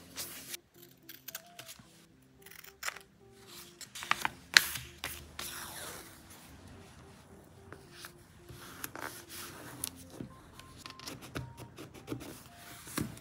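Soft background music under desk-handling noises: short sharp clicks and rustling as rolls of masking tape and paper stationery are sorted through, the loudest click about four and a half seconds in.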